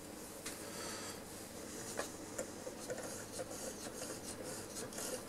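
Faint ticks and light rubbing from hands working the freshly oiled dial-cord drive of a valve radio chassis, with a sharper click at the end.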